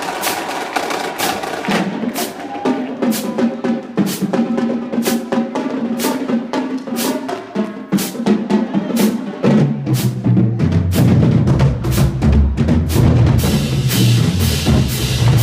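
High school marching drumline playing: a dense, fast run of sharp snare strokes over pitched drums, with a deep low part coming in strongly about two-thirds of the way through.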